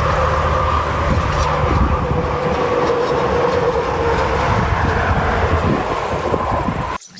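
Electric pressure washer running steadily while spraying a muddy toy tanker truck clean, with a deep motor rumble and a steady whine; it cuts off suddenly about seven seconds in as the trigger is released.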